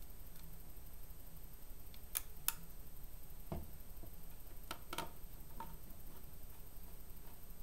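About half a dozen small clicks and taps of a small screwdriver and fingers working screws into the plastic faceplate of a Kodak Brownie Bull's-Eye camera, one of them a duller knock.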